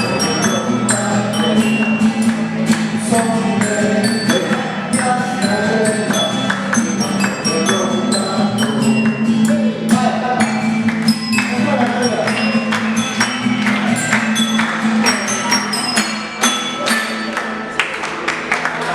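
Live music played on a homemade instrument of tuned, cut tubes: many short ringing notes at changing pitches over a steady low drone, with a quick percussion beat.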